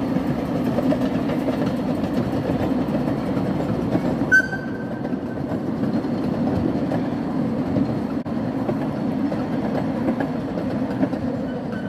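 15-inch gauge miniature steam train running past, a steady rumble of its wheels and coaches on the track. About four seconds in comes a sharp clank, followed by a brief high squeal.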